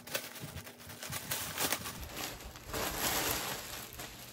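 A clear plastic packaging bag crinkling in a run of short crackles as a Sherpa jacket is pulled out of it, then a longer rustle of plastic and fabric starting about two seconds in.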